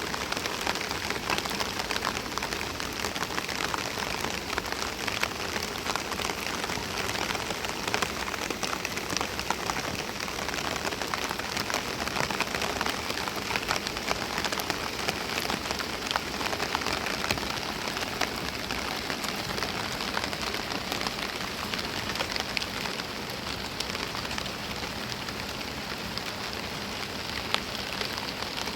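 Steady rain falling, with many sharp drop impacts ticking close by.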